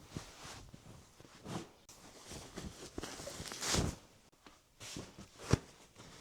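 Bed sheets being handled and pulled off a bed: fabric swishing and rustling in several separate strokes, with a short soft thump near the end.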